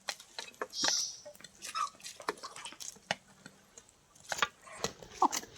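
Chickens pecking at feed, making irregular sharp taps and clicks, with a brief scrape about a second in and a couple of short calls.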